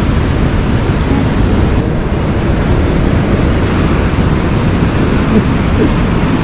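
Steady rush of ocean surf breaking and washing up the beach, mixed with wind buffeting the microphone.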